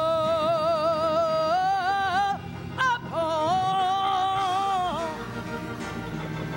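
Gospel solo singing: a voice holds two long notes with wide vibrato over a quiet instrumental backing. The first lasts about two and a half seconds, and the second, after a short break, about two seconds.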